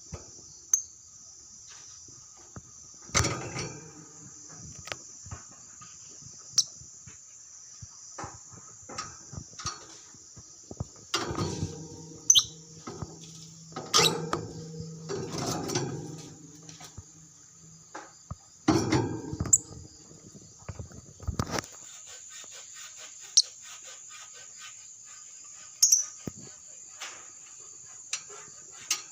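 Lovebird giving short, sharp, high chirps now and then over a steady high-pitched drone, with a few louder clattering knocks in the middle.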